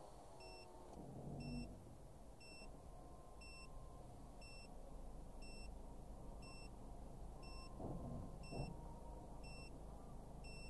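A short, high electronic beep repeating about once a second inside a car that sits idling with a faint low hum.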